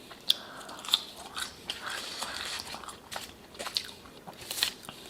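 Chewing of french fries, with irregular wet mouth clicks and soft crunches.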